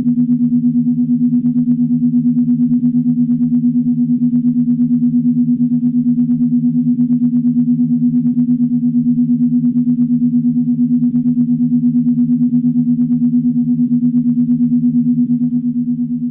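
Star Trek original series sound effect: a synthesized low electronic hum of two steady tones, pulsing quickly and evenly, easing off slightly near the end.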